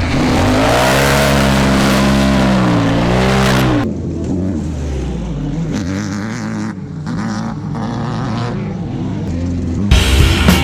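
Off-road race vehicle engine revving hard, its pitch rising and then falling, before an abrupt cut about four seconds in to a quieter, rougher stretch of engine noise.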